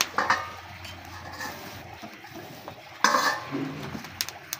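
Dishes and kitchen utensils being handled and set down: a few sharp clinks and knocks, the loudest about three seconds in with a brief ring.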